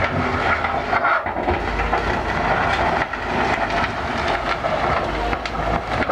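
Wheel loader's diesel engine running under load as its bucket pushes a pile of dirt and stones, with steady rattling from the machine and a few sharp clatters near the end.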